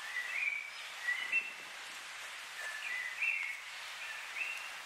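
A songbird singing four short phrases of clear notes that step up and down in pitch, over a steady hiss.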